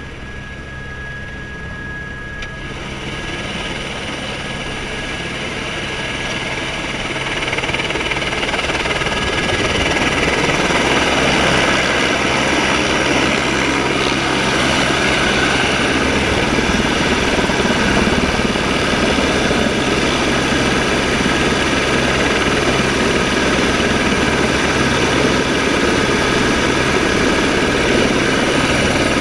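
Helicopter's turbine engine and rotor running on the ground: a steady high whine over a low hum, growing louder over the first ten seconds, then holding steady.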